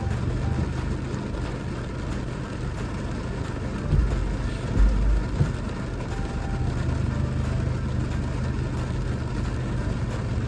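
A car engine idling with a steady low hum under the even hiss of pouring rain. Two low thumps come about four and five seconds in.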